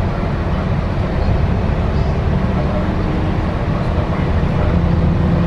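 MAN Lion's City A22 Euro 6 single-deck bus running along the road, heard inside the passenger cabin: a steady rumble of engine and road noise. A steady low hum joins it about four and a half seconds in.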